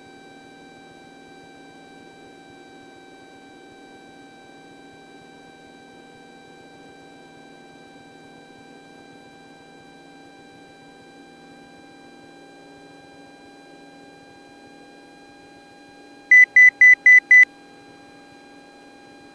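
Cessna 172S's Lycoming four-cylinder engine at takeoff power, heard as a steady drone with a steady high whine over it. About sixteen seconds in, five quick, loud electronic beeps sound within about a second.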